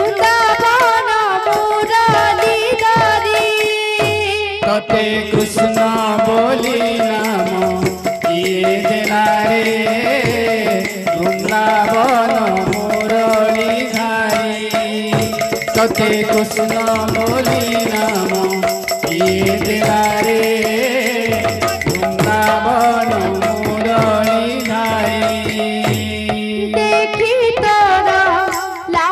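Odia kirtan music: a double-headed barrel drum (mridanga) and a small jingled frame drum (khanjani) played in a steady rhythm under a bending melody, with a low note held from about five seconds in until near the end.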